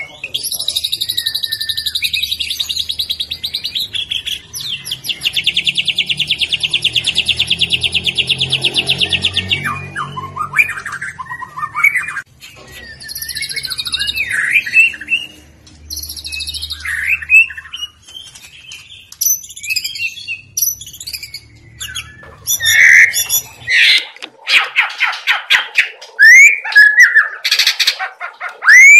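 White-rumped shama (murai batu) singing: a long, fast, buzzing rattle for about the first ten seconds, then varied whistled and chattering phrases, ending in a run of loud upswept whistles.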